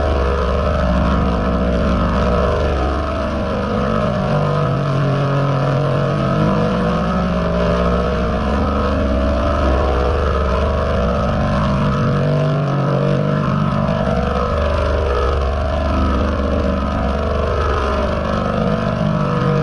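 A steady, dense drone with many wavering, bending tones layered over it: a sound run through the 'G Major' layered pitch-shift effect.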